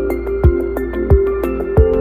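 Background music with a steady beat: a low kick drum about every two-thirds of a second, light ticking cymbal hits between, and held synth notes.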